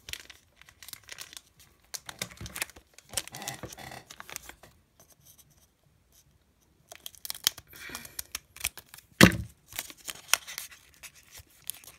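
Foil Pokémon Rebel Clash booster pack being cut open with scissors and crinkled as it is handled, in short bursts with a pause in the middle. A sharp click about nine seconds in is the loudest sound.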